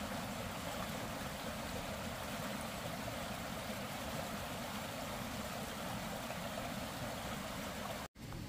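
Shallow stream rushing steadily over rocks and stones, cutting off suddenly near the end.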